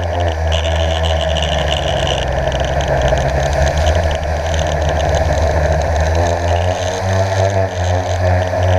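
Blade 350 QX quadcopter's motors and propellers whirring steadily, heard up close from its onboard camera. The pitch wavers in the middle and settles again near the end.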